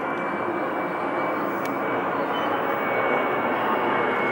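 Jet airliner's engines passing overhead on approach to land, a steady rushing noise that grows slowly louder, with a thin high tone held steady through it.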